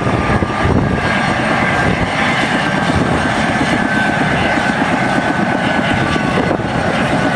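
Twin-turbine Mi-2 helicopter running on the ground with its main rotor turning: loud, steady engine and rotor noise with a faint high turbine whine.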